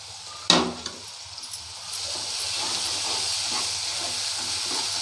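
Blended tomato frying with onions in hot oil in a nonstick kadai, stirred with a steel spatula. A single sharp knock of metal on the pan comes about half a second in. From about two seconds a steady sizzle and hiss swells up as the tomato spreads over the hot pan, with the spatula scraping through it.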